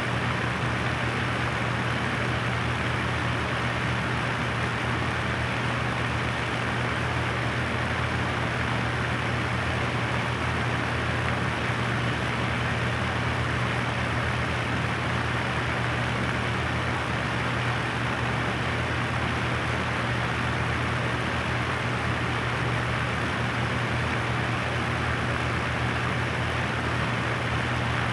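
Electric floor fan running steadily at one speed: a constant motor hum under an even whoosh of moving air.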